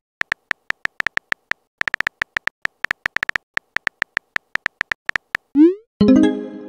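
Phone-keyboard typing clicks tapping out a message in an irregular run of short ticks. Near the end comes a short rising whoosh of the message being sent, then a notification tone of several pitches that fades.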